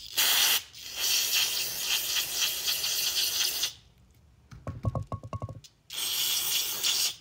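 Aerosol cleaner hissing out through a straw in three bursts, a short one, a long one of nearly three seconds and one near the end, as a rubber master-cylinder dust seal is sprayed clean. Between the long burst and the last there is a short, fast rattle.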